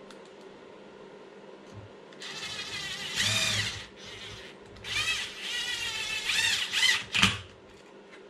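Cordless electric screwdriver driving screws into a plastic RC car chassis. It starts about two seconds in and runs in several short bursts, its motor whine rising and falling in pitch as it speeds up and slows, then stops near the end.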